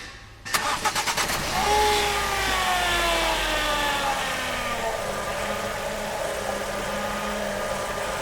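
Car engine cranked and catching about half a second in, its speed falling back over the next few seconds to a steady idle. Under it, the hydraulic power steering pump hums with a steady tone, a sign of air in the power steering fluid.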